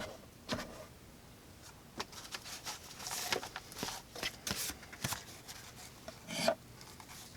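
CRKT Montosa folding knife's 8Cr13MoV blade slicing through paracord: a run of short scratchy cuts, with a louder one near the end.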